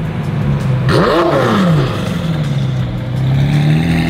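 Twin-turbo Ford GT's V8 running at low revs in a low gear, with one quick rev blip about a second in. Near the end the note climbs steadily as the car accelerates.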